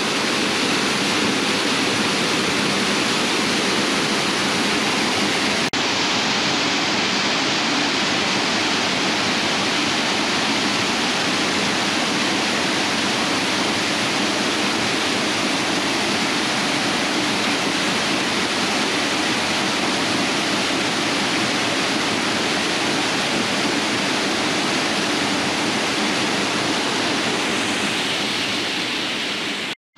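Waterfall in full, heavy flow after a night of heavy rain: a loud, steady rush of falling water, broken off briefly near the end.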